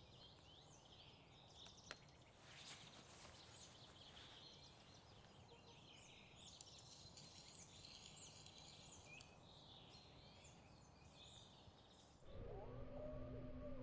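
Faint outdoor ambience of small birds chirping and twittering, with a few soft clicks. About twelve seconds in it cuts off abruptly and electronic music with steady held tones begins.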